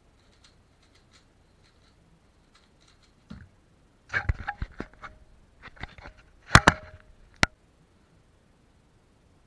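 Faint clicking of a Valk 3 Power M 3x3 speedcube being turned fast, ending in a dull thud about three seconds in as the solve finishes. After it comes a run of louder sharp clicks and knocks from handling, strongest about two thirds of the way through, with a last sharp click near the end.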